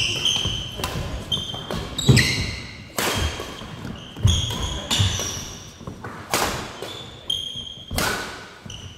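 Badminton rally: rackets striking the shuttlecock roughly once a second, with sneakers squeaking and feet thudding on a wooden gym floor between the shots.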